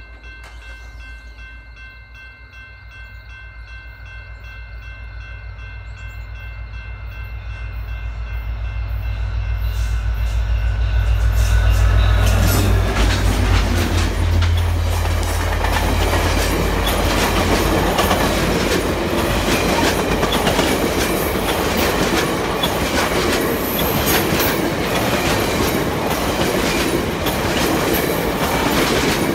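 VIA Rail's Canadian passenger train approaching and passing: a horn chord held for about the first ten seconds while the diesel rumble of locomotive 6420, an EMD F40PH-2, grows louder and passes about twelve seconds in. Then the stainless-steel passenger cars roll by with a steady clickety-clack of wheels on the rail joints.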